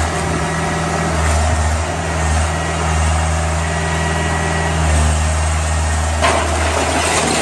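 Diesel engine of a tracked excavator running steadily as it works, with a sharp crack near the end.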